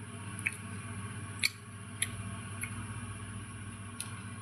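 Red pomelo segments being peeled and handled: a few faint, scattered clicks and soft wet squishes of the fruit's membrane and flesh, over a steady low hum.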